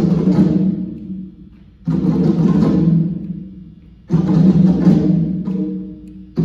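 An ensemble of hand drums played together in three loud phrases, about two seconds apart. Each phrase rings out and dies away briefly before the group strikes in again.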